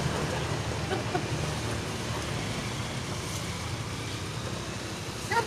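Steady roadside traffic noise: motorbike engines running close by, an even low rumble.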